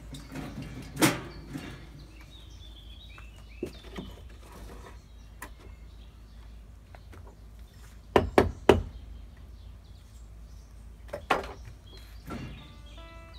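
Hard blows of a hand tool on beech wood: one loud strike about a second in, a couple of lighter knocks, three quick strikes past the middle, and two more near the end.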